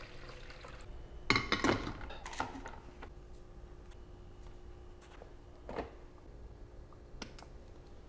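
Glass carafe of a Black & Decker 12-cup drip coffee maker set into place on its warming plate, with a short cluster of knocks and clinks, then a couple of soft clicks near the end as a button on the machine's control panel is pressed.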